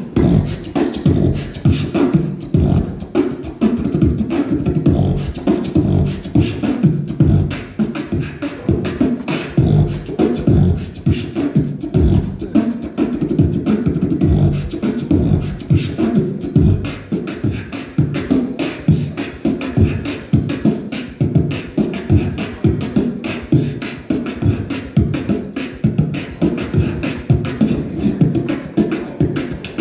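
Live beatboxing into a handheld microphone: a dense, fast, unbroken rhythm of vocal kick, snare and hi-hat sounds, heavy in the bass.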